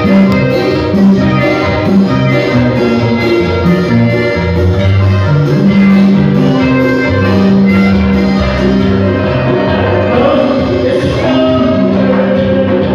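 Band music: a Latin-style ensemble playing with held instrumental notes and a steady beat.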